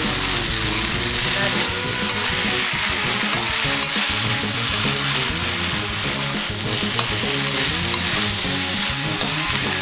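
Sea bass pieces and Thai basil being stir-fried in a hot pan, sizzling steadily, with a couple of sharp spatula taps about four and seven seconds in.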